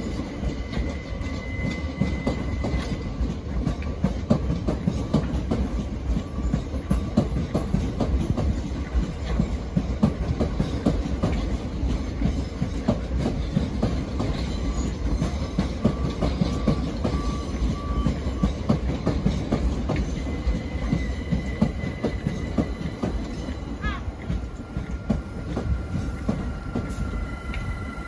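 Gatwick Express Class 387 electric multiple unit running past over the points, its wheels clattering continuously over rail joints and crossings above a low rumble. Near the end comes a brief rising wheel squeal, then a faint steady whine.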